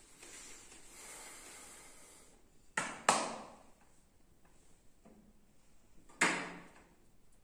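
Three sharp impacts, two close together and then a third about three seconds later, each ringing out briefly in a small room. They come after a soft hiss in the first two seconds.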